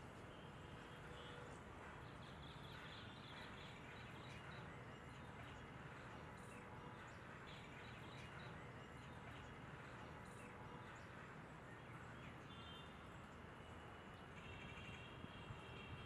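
Faint outdoor background hiss with faint, high bird chirps and short trills now and then, a few seconds in and again near the end.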